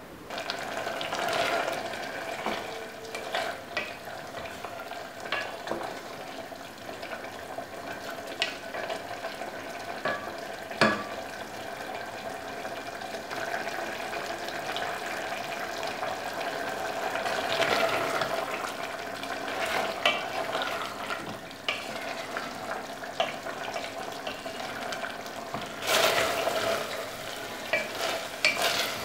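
Beef simmering and sizzling in an open aluminium pressure cooker while a wooden spatula stirs it, with scattered knocks of the spatula against the pot and a louder knock about eleven seconds in. The beef's juices are being cooked down over a medium flame.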